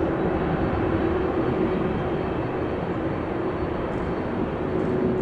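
Boeing 747-400F's four jet engines running at taxi power: a steady rumble with a held droning tone.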